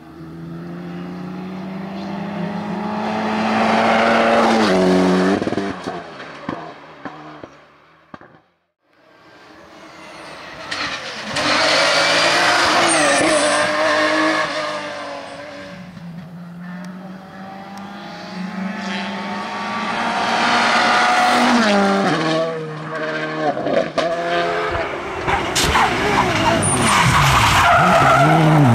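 Rally cars passing one after another on a tarmac stage, several passes cut together. The later cars are Porsche 911s with flat-six engines. Each engine rises in pitch as it accelerates, then drops in steps as it downshifts for a corner, with tyre squeal as a car slides through a hairpin near the end.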